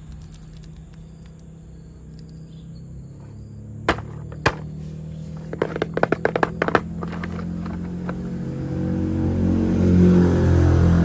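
Hard plastic toy-train parts clicking and snapping together several times around the middle, over a steady low hum that grows louder near the end.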